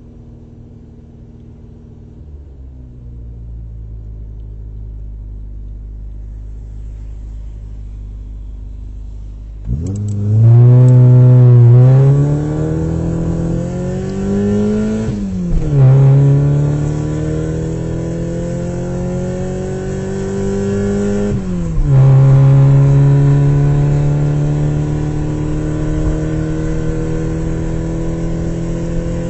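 Car engine running low and steady, then about ten seconds in it pulls away loudly and accelerates. The engine pitch climbs, drops sharply twice at gear changes, and climbs steadily again after each.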